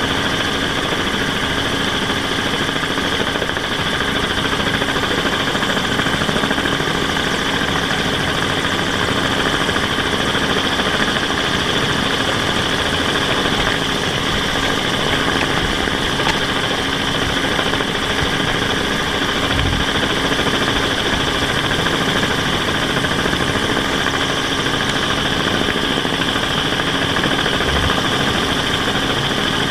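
Steady hum of the camera aircraft's rotors and motors, with a constant whine over a noisy rush and no change in pitch.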